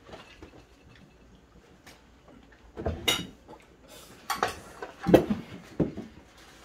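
A serving spoon clattering and scraping in a rice cooker pot and against dishes as rice is dished out. A few sharp clinks come in the second half.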